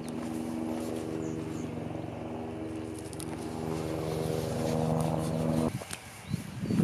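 An engine running steadily, slowly getting louder, then cutting off suddenly about five and a half seconds in; a low, uneven rumbling noise follows near the end.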